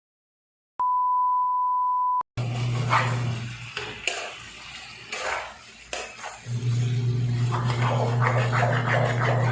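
A steady, single-pitch electronic beep lasting about a second and a half. After a brief cut comes a stretch of indistinct noisy sound over a steady low hum, with a couple of sharp clicks.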